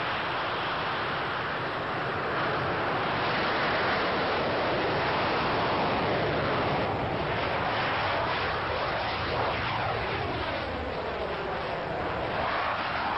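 Jet noise of a Mikoyan MiG-29 Fulcrum's twin turbofan engines in display flight: a loud, steady roar that swells a few seconds in. In the second half it takes on a sweeping, phasing whoosh as the jet moves.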